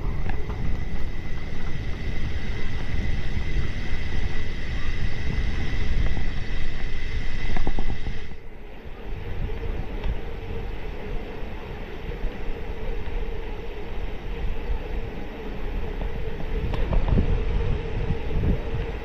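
Wind buffeting the microphone over a low rumble while riding, with a faint steady whine. The rumble dips briefly about eight seconds in, and the whine is lower in pitch afterwards.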